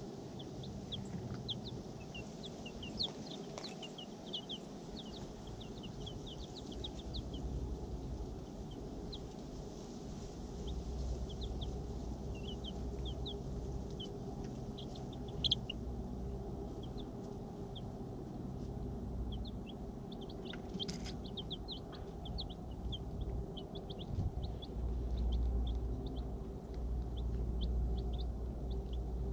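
Young Rhode Island Red chicks peeping: many short, high chirps, scattered and overlapping, over a low rumble that swells at times.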